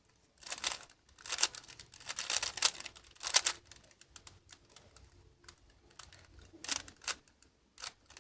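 Plastic Rubik's cube being turned by hand, its layers clicking and clacking in quick runs of turns with short pauses between them. The runs are quieter in the middle of the stretch.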